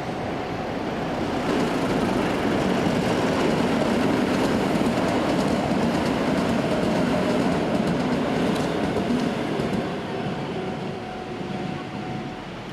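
Keisei Oshiage Line train running past on the newly elevated track. It grows louder a second or two in, holds steady, and fades near the end.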